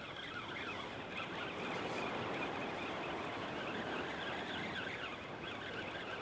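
Ocean surf washing steadily against the rocks of a jetty.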